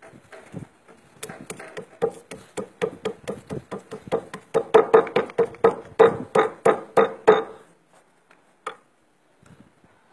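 Rubber mallet pounding frozen animal fat on a marble slab, a quick steady run of knocks at about four a second that grows louder, then stops, with one last knock a little later.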